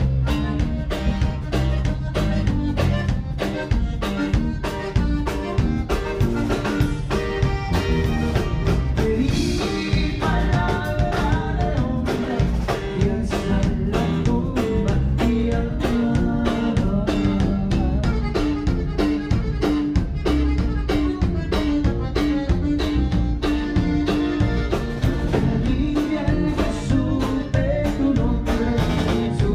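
Live conjunto band playing: button accordion carrying the melody over bajo sexto, electric bass and a drum kit keeping a steady beat.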